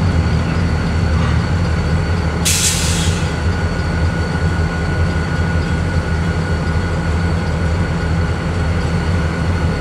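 Diesel freight locomotive running at low speed as it approaches, its engine a steady low rumble, with a short hiss of air about two and a half seconds in.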